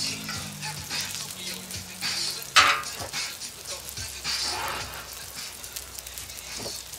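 Smash burger patties, onions and buns sizzling on a Royal Gourmet flat top griddle, with a metal spatula scraping the steel surface a few times. The loudest scrape comes about two and a half seconds in.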